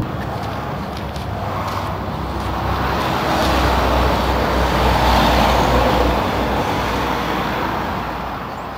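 Car road noise: an even rush of tyres and engine with a low rumble, swelling to a peak about five seconds in and then fading away.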